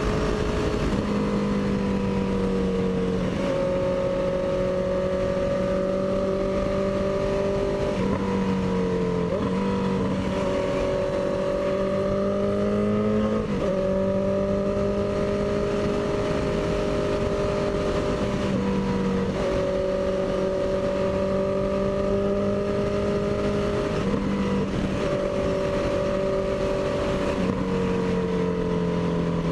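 Honda CB650F inline-four motorcycle engine running loud while riding, its note holding steady and then shifting up or down every few seconds as the throttle and gears change, over wind noise on the microphone.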